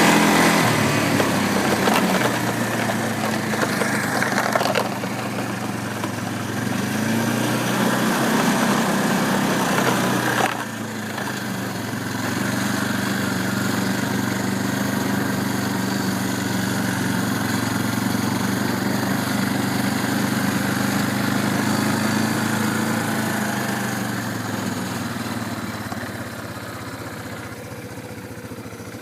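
A motor vehicle engine running steadily at low speed. Its sound shifts abruptly about a second in and again about ten seconds in, and it grows quieter near the end.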